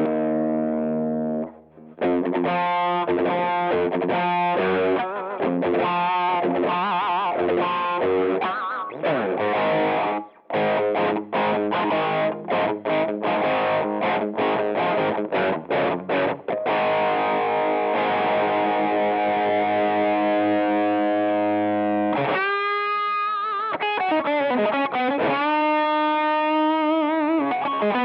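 Distorted electric guitar boosted by a Tate FX Hot Coals treble booster, a Rangemaster-style single-knob pedal. It plays picked riffs, then a run of short choppy chords and a long ringing chord, and near the end bent notes with wide vibrato.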